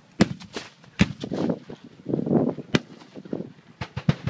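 Black-powder gunfire from a Civil War reenactment battle: about five sharp reports at uneven intervals, with rumbling echo between them.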